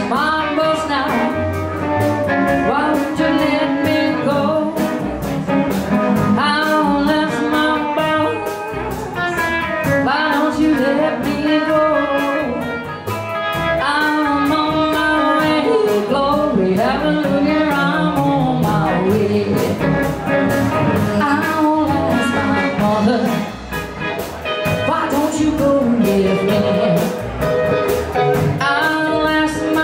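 Live blues band playing in a 1950s Chicago style: electric guitar, acoustic guitar, upright bass and drums, with a woman singing lead.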